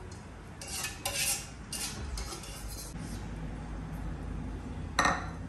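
A metal skimmer scraping and clinking against a kadai and a glass bowl as fried bitter gourd is lifted out of the oil, in a few short bursts of clatter, with one sharp clink near the end.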